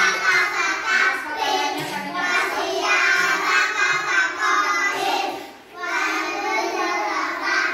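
A group of young children chanting together in unison, with a brief break about five and a half seconds in before they carry on.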